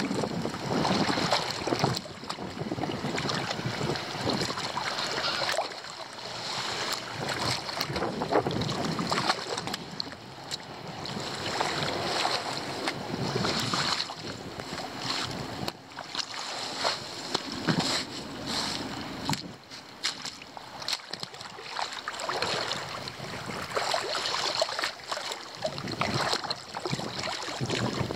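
Standing floodwater splashing and sloshing irregularly as wet leaves blocking a roadside drain are cleared.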